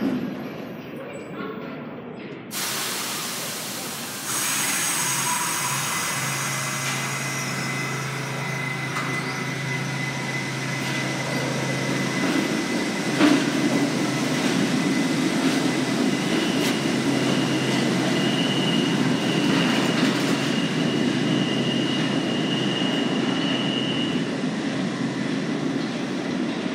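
R68-series subway train getting under way in a tiled underground station. A sudden loud hiss of air comes about two and a half seconds in, then the steady rumble of the moving cars with a low motor hum. Later a thin, high wheel squeal rides over the rumble.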